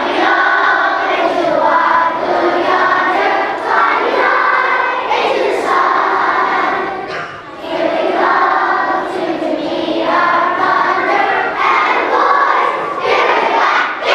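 A large group of elementary school children singing together in unison, in phrases a few seconds long.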